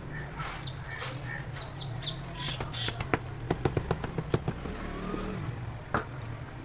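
A quick run of sharp taps on sand-cement blocks, about five a second for a second and a half, then one more tap near the end, over a steady low hum.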